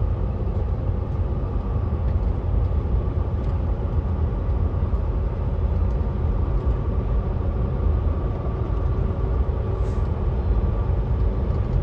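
Steady engine and road noise heard inside a truck's cab cruising on the highway: a deep, even rumble with a faint steady whine above it.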